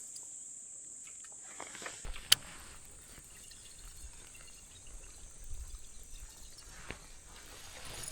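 A steady high insect drone, strong for the first two seconds and then faint, with one sharp click a little over two seconds in and low rumbling noise after it.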